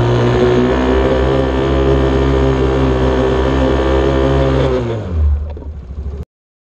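TaoTao 125 youth ATV's small single-cylinder four-stroke engine running steadily under throttle. About five seconds in, its pitch drops as the throttle comes off and it slows, then the sound cuts off suddenly.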